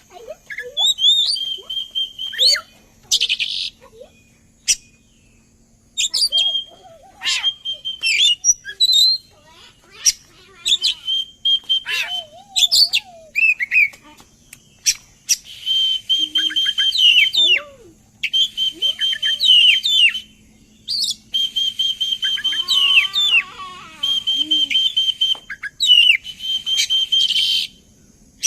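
Oriental magpie-robin (kacer) singing loudly in a varied run of whistles, slurred glides and sharp chips, then from about halfway in longer dense phrases built on a rapid, buzzy trill, broken by short pauses. It is the full song used as a lure to set other kacer birds singing.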